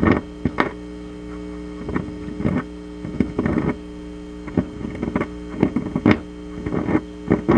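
Magnavox console stereo humming steadily through its speakers while a fingertip rubs and taps the phono cartridge's stylus, each touch coming through the amplifier as an irregular scratchy thump. The amplified touches show the pickup and amplifier have plenty of sensitivity; the stylus itself is worn away.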